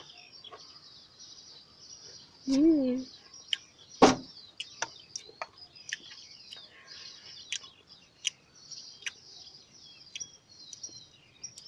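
Chewing of crunchy star-shaped ketchup crisps: scattered sharp crunches, the loudest about four seconds in, just after a short hummed "mm". Birds chirp in the background.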